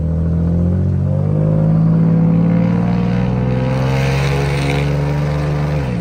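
Ford F-150's 3.7-litre V6 on cat-back straight pipes with no mufflers, pulling under moderate acceleration: the engine note climbs steadily, then drops suddenly near the end at a gear change.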